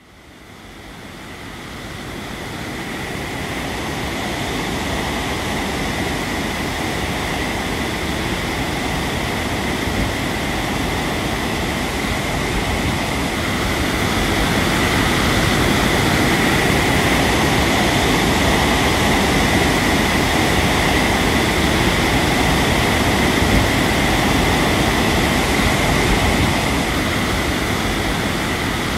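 Small quadcopter drone's propellers running steadily: a high whine in two pitches over a broad rushing noise. It fades in over the first few seconds and grows a little louder about halfway through.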